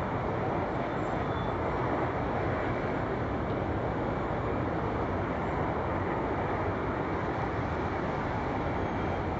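Steady running noise of a light rail train, heard from aboard while it moves.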